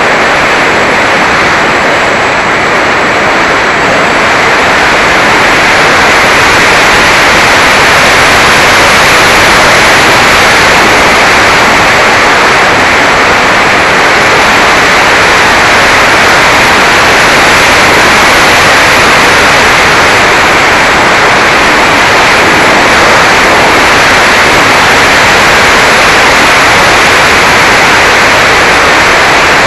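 Loud, steady rush of airflow and motor noise through the onboard action camera's microphone on a Mini Talon RC plane in flight, with no distinct motor tone standing out. It gets slightly louder about five seconds in.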